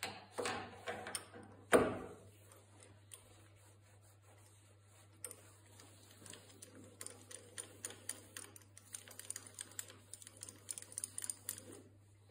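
Small metal lathe parts being handled by hand: a few knocks in the first two seconds, the loudest about two seconds in, then a run of quick, light metallic clicks and taps from about five seconds on, over a steady low hum.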